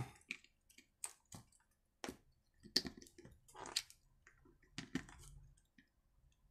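Scattered clicks and short scrapes of a screwdriver and hands working on a chainsaw's plastic recoil starter as its centre screw is tightened down over the pulley and spring.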